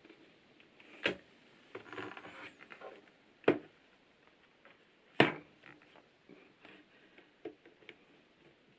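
PBT keycaps being pressed onto a capacitive keyboard's stems: three sharp plastic clicks, about one, three and a half and five seconds in, with lighter clatter and ticks of keycaps between them.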